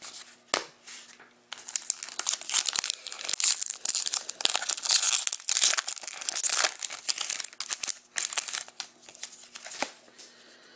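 Foil wrapper of an Upper Deck SP Authentic hockey card pack being torn open and crinkled by hand, a dense crackling from about a second and a half in until about three-quarters of the way through. After that come a few light clicks of the cards being handled.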